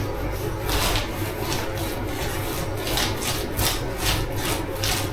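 Wide paintbrush swishing and scratching across a plastered wall, laying on lime paint in repeated strokes, about one or two a second.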